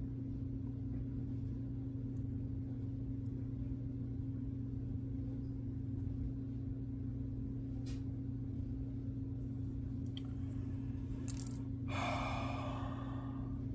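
Steady low electrical hum, with a few faint clicks as fingers handle small plastic model-train coupler parts, and a short breathy rustle near the end.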